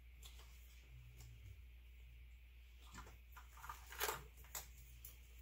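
Small clicks and rustling of rubber hoses and fittings being handled in an engine bay, with a louder scrape and rustle about four seconds in as a hose is pulled.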